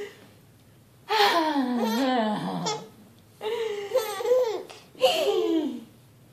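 Baby laughing in three bursts, starting about a second in, with short pauses between them.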